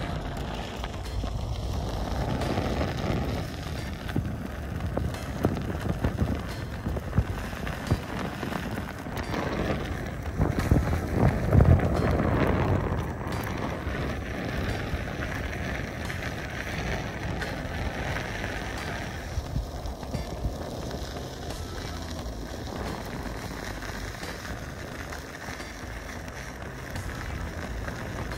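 Gotway MSX electric unicycle rolling over a dirt and gravel road: the tyre crackles steadily on loose grit under a low wind rumble on the microphone, growing louder for a couple of seconds around eleven to twelve seconds in.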